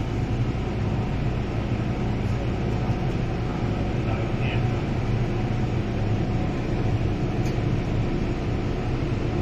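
Steady low hum and rumble inside an MTR Island Line M-Train car, from the train's traction motors and running gear.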